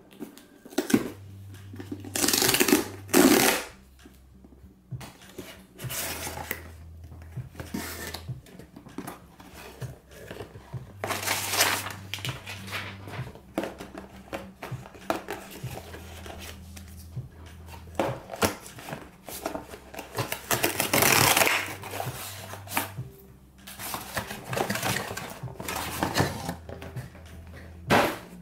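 Cardboard phone packaging being handled: a tear strip pulled, the box opened, and card inserts and sleeves rustled and slid out, in irregular scraping, rustling bursts. The loudest bursts come a few seconds in and again about two-thirds of the way through.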